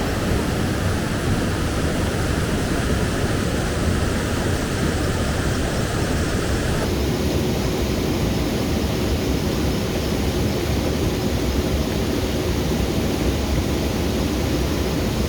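Steady rush of the Pozo Azul waterfall cascading over rocks, heard up close. About seven seconds in the rush turns slightly duller.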